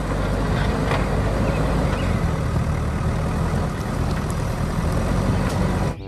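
Diesel engine of a JCB backhoe loader running steadily with a low drone as its front bucket pushes earth, cutting off suddenly at the end.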